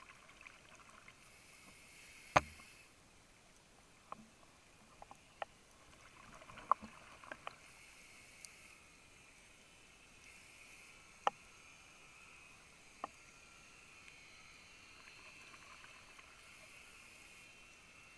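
Underwater recording on a reef: a faint hiss with scattered sharp clicks and snaps, the loudest about two seconds in. Every few seconds a soft swell of high hiss lasting about a second, the sound of a scuba diver's regulator breathing.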